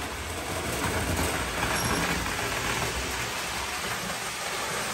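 O gauge model train running on three-rail tubular track: a steady noise of wheels on the rails, growing louder for a second or so about a second in.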